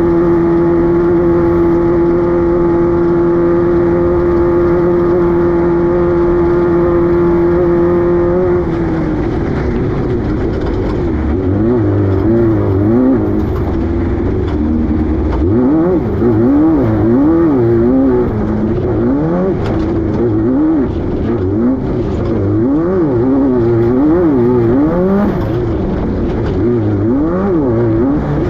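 Class 5-1600 off-road race car's air-cooled Volkswagen 1600 engine held at steady high revs for about eight seconds, then revving rapidly up and down again and again, with scattered knocks and rattles.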